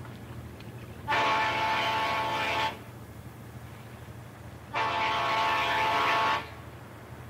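A river towboat's cluster of trumpet air horns sounding two long blasts, each about a second and a half, about two seconds apart, with a low steady hum underneath.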